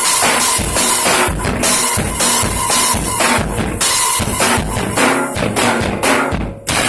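Drum kit played in a fast freestyle, with the kick drum, snare and cymbals struck in dense runs. Near the end the playing breaks off briefly, then comes one last hit.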